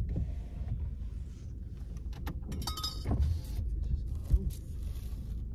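A steady low rumble with a few light clicks and clinks scattered through it.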